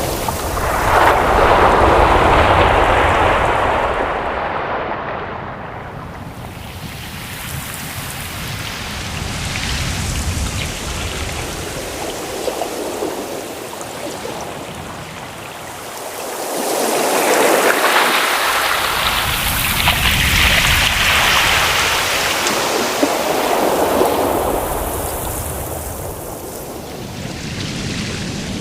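Ocean surf: waves breaking and washing in, the noise swelling and easing over several seconds at a time, with one big surge near the start and a longer one past the middle.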